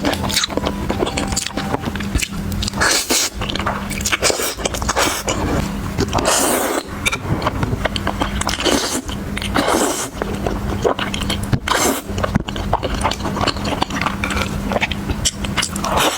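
Close-miked eating sounds: chewing and biting, with frequent sharp, irregular crackles and wet smacks. A steady low hum sits underneath throughout.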